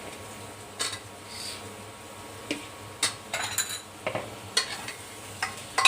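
A metal spoon scraping and knocking against a cooking pot in irregular strokes as cut potatoes are stirred into the spiced masala, with oil sizzling underneath.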